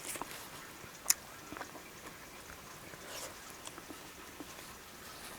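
Close-miked eating sounds: soft chewing and small wet mouth clicks, with one sharp click about a second in.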